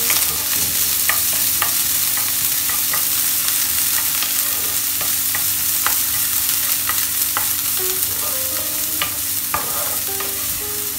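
Chopped onion, green chillies and curry leaves sizzling as they fry in hot oil in a non-stick frying pan, stirred with a wooden spatula that clicks and scrapes against the pan many times.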